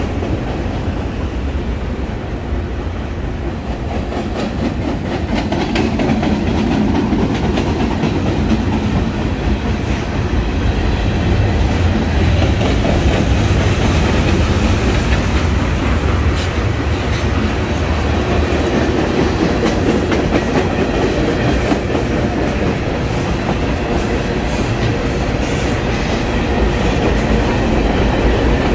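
Freight train cars rolling past on the track: a steady wheel-on-rail rolling noise with many quick clicks, getting a little louder over the first several seconds and then holding steady.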